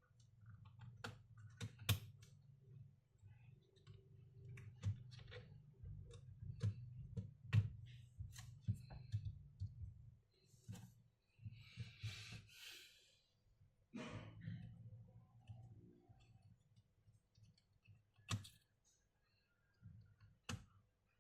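Irregular clicks and light knocks from the underside case of a Lenovo LOQ laptop being handled and worked open with hands and tools, with a short scraping rustle about twelve seconds in.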